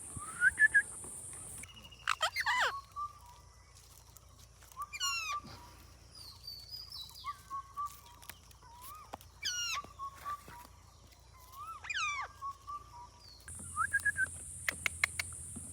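Indian ringneck parrot whistling and calling: about four sharp, sweeping whistles a few seconds apart, each running into a short held tone, then a quick run of sharp clicks near the end.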